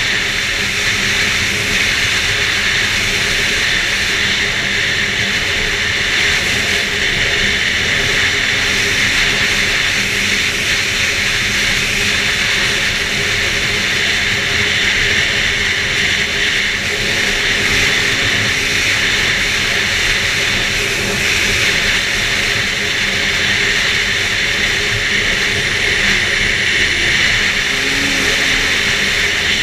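2011 Arctic Cat F8 Sno Pro snowmobile's two-stroke twin engine running at a steady pace while riding, with track and wind noise mixed in.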